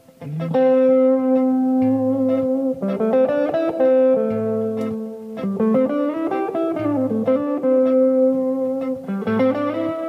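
1982 Made-in-Japan Tokai Silver Star electric guitar, a Strat-style guitar with single-coil pickups, played with a clean tone: ringing melody notes over low notes that come back every couple of seconds, with string bends gliding up and down about halfway through.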